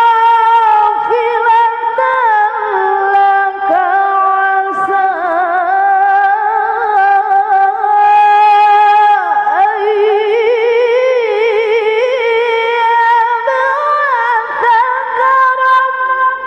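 A qari'ah, a woman reciting the Qur'an in the melodic tilawah style, into a handheld microphone, singing long high held notes with quick quavering ornaments and sliding from one pitch to the next.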